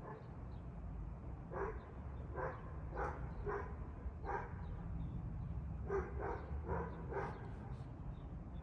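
A dog barking off and on, about nine short barks in two groups, over a steady low rumble.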